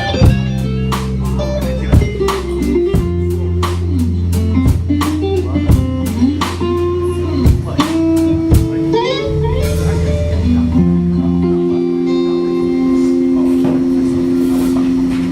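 Live band playing an instrumental passage: electric guitar with sliding, bent notes over bass and drum kit. About ten seconds in the drums stop and held guitar chords ring on.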